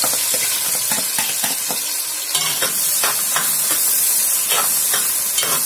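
Chopped red onions sizzling as they fry in hot oil in a large pot, with a utensil stirring them and scraping against the pot several times.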